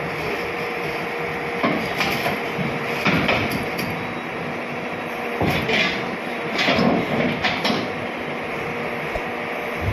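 Hyundai crawler excavator running with a steady hum, and a string of irregular knocks and clanks from about two seconds in to about seven and a half seconds in as it works its boom and bucket.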